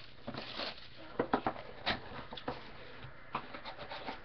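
Small cardboard trading-card boxes being handled: irregular taps and knocks as the boxes are stacked on a granite countertop and one box lid is opened.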